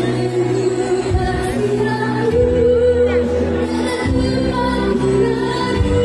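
Live band with keyboard and strings playing a slow song while a woman sings, the bass notes changing every second or two under held sung notes.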